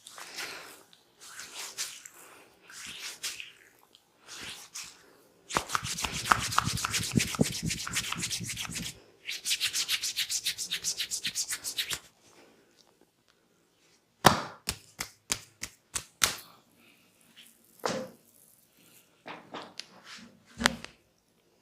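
Hands massaging a person: rubbing and scratching swishes, then a long spell of rapid, even percussive strokes of about ten a second. After a pause comes a quick run of about six sharp clicks, then a few scattered strikes.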